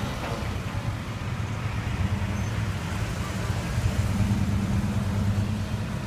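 Engines of vintage cars and wood-bodied station wagons driving past in a line, a steady low rumble.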